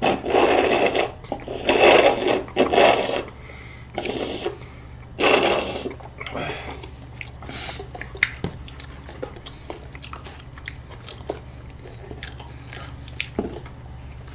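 Two people eating soft desserts (cream-topped waffle and muffin) close to the microphone: several loud, noisy mouth sounds of biting and chewing in the first six seconds, then quieter chewing with many small clicks and smacks.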